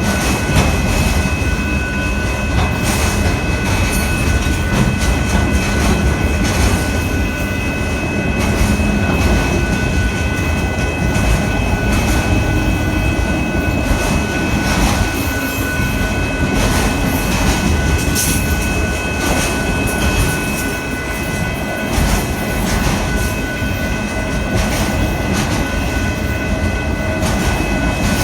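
Union Pacific autorack freight train rolling past close by: a steady, loud rumble of steel wheels on the rails, with continual clicks over the rail joints and a thin, steady high squeal above it.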